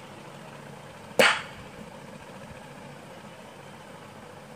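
A single sharp click a little over a second in, from a wooden drumstick tip striking a button on a Rockstar Pad 20 Pro electronic drum pad, over faint steady background noise.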